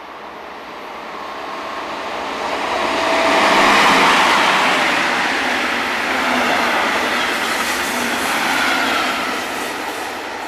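DB class 120 electric locomotive hauling a double-deck regional train passes at speed. The rush of wheels and coaches swells to its loudest about four seconds in, stays loud as the coaches go by, and eases off near the end.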